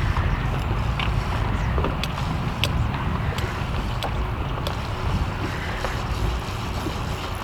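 Boat under way at trolling speed: a steady low rumble of the motor mixed with wind on the microphone, with scattered light clicks.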